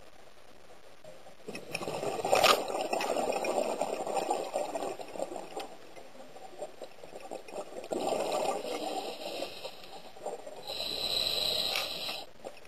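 Scuba diver breathing through a regulator underwater: two long gurgling rushes of exhaled bubbles, then a hissing inhale near the end.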